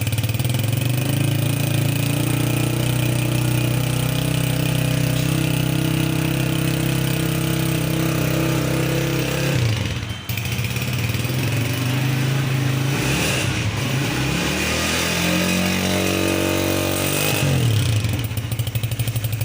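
Honda CG125 motorcycle's single-cylinder four-stroke engine idling steadily, cutting out briefly about halfway and then running again. Later it is revved up, held higher for a few seconds and let back down to idle.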